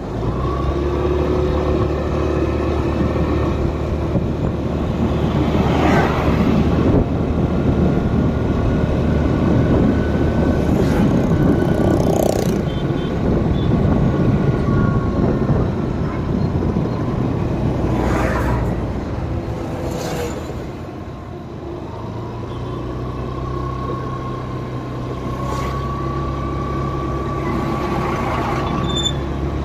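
Motor vehicle engine running steadily with road noise while driving. There are a few brief sharper sounds along the way, and the engine note dips and changes a little past two-thirds of the way through.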